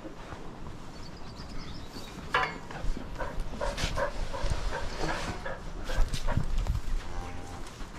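A dog barking: one sharp bark about two and a half seconds in, then a run of short barks over the next few seconds.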